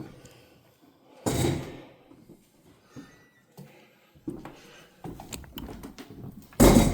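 Two loud bangs, one a little over a second in and a louder one near the end, with scattered light clicks and knocks between them.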